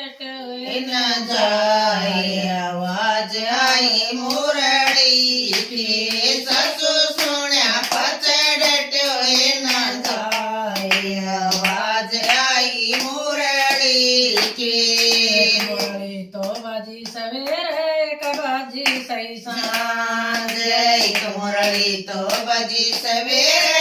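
A high voice singing a Haryanvi devotional bhajan in long, held melodic phrases, accompanied by hand clapping that keeps time.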